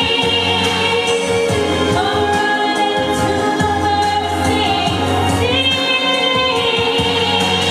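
Christian worship song: a woman singing long held notes, with background choir vocals over a performance backing track and a steady bass.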